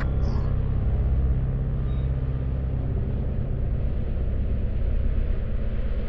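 A steady, deep rumbling drone: horror sound-design ambience with no clear beat or melody.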